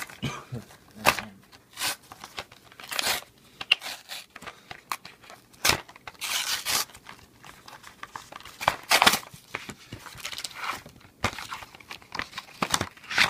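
Pokémon card packaging being torn and crinkled open by hand, in a run of irregular tearing and crackling rustles with one longer tear about six seconds in.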